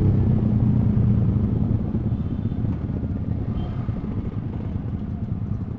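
Motorcycle engine running on the move. Its strong note eases off and gets quieter over the first two seconds, then settles into a steady low rumble.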